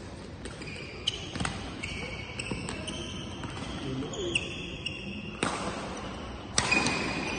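Badminton rally on an indoor court: sharp racket strikes on the shuttlecock, with court shoes squeaking on the court surface between the hits.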